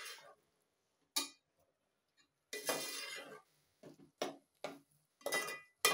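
A slotted metal spoon scraping and clinking against the side of a metal cooking pot as vegetables are stirred, in a few separate strokes: one short, then a longer scrape, then several quick ones near the end.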